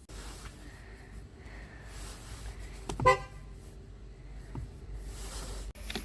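2016 Citroën C4 Picasso's horn giving one short beep about halfway through, over a low steady cabin rumble.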